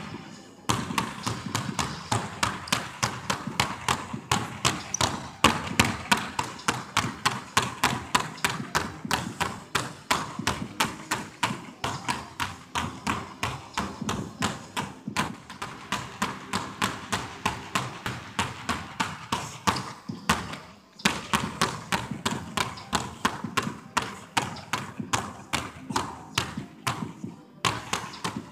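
Basketballs dribbled hard on a hardwood gym floor in a steady, fast rhythm of several bounces a second, echoing in a large hall. The bouncing stops briefly about two-thirds of the way through and again near the end.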